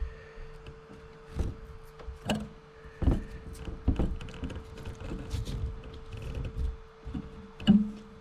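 Hands fitting a fresh LiPo battery to an FPV drone: a scattered run of clicks, knocks and thuds, the loudest near the end, over a steady thin tone.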